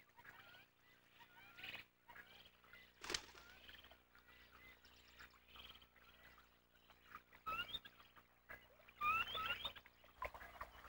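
Black terns calling at the nest: faint, scattered short chirps, then a louder run of quick rising chirps about two-thirds of the way through. A single brief click comes about three seconds in.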